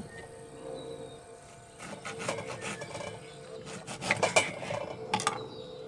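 Hands pulling apart a cut jackfruit: the fibrous flesh and rags tearing and rustling in short, scratchy clusters about two, four and five seconds in.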